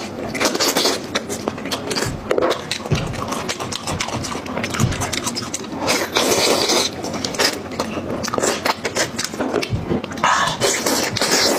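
Close-miked eating of a cooked sheep's head: wet chewing, lip-smacking and sucking while meat and cartilage are pulled off the bones, with dense crackling throughout.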